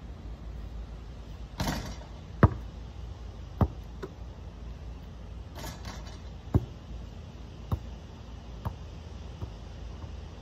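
A basketball is shot at an outdoor hoop twice: each time a short rattling hit on the hoop, then the ball drops and bounces on the hard ground with sharp ringing bounces that come closer together as it settles. The first bounce, about two and a half seconds in, is the loudest.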